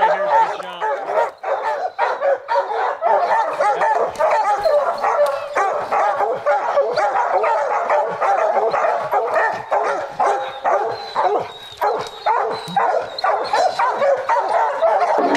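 A pack of bear hounds barking and baying together without a break, many dogs at once with their calls overlapping, at a treed bear.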